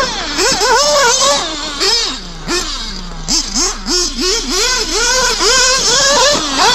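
Nitro RC buggy's FX two-stroke glow engine revving up and down in quick throttle bursts. Between about two and three seconds in the revs fall away to near idle, then it blips rapidly again, about three times a second.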